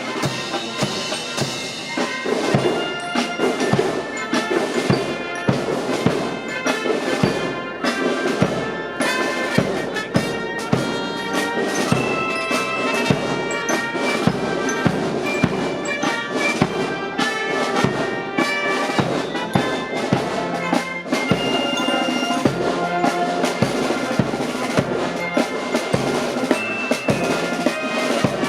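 Military marching band playing a march: brass melody over a steady drum beat.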